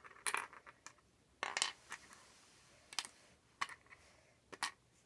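Glass gemstones dropped one at a time into the wooden pits of a Mancala board, each landing with a sharp click; about half a dozen clicks at uneven intervals.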